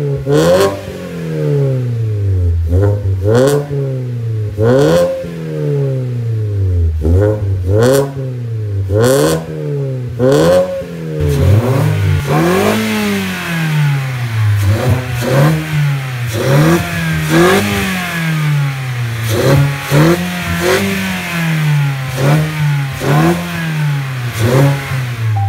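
2015 Mazda 3's four-cylinder engine being free-revved over and over in short blips through an aftermarket full exhaust with dual exits, the pitch rising and falling every second or so. In the second half, with the engine bay close by, a hissing induction sound from the K&N open-element air intake joins the revs.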